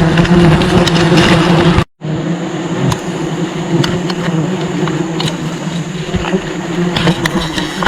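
Honeybees buzzing steadily in a dense mass, a low even drone. It breaks off in a sudden cut about two seconds in, then goes on a little quieter.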